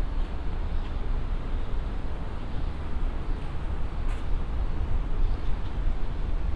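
Steady city street ambience: a continuous low rumble of traffic under the general noise of the street, with a faint short click about four seconds in.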